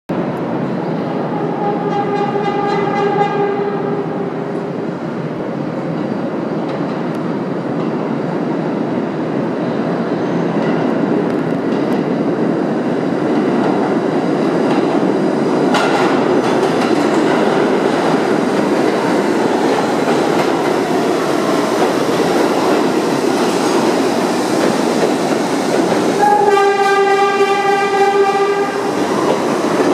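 R68A subway train running through the station without stopping, with a steady rumble that builds as it nears and passes. Its horn sounds two long blasts, one about two seconds in and one near the end.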